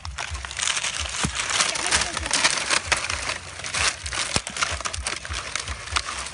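Close crunching, crackling and rustling of dry soil, twigs and dead leaves being scraped and dug by hand, with many irregular sharp ticks.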